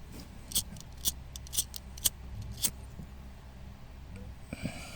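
Light, sharp clicks, about five in the first three seconds, over a low steady hum.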